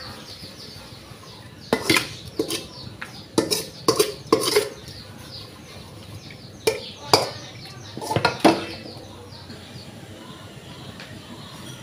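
A metal spoon clinking and scraping against a metal mixing bowl while boiled dumplings are tossed in grated coconut. The clatters come in irregular clusters and stop about three-quarters of the way through.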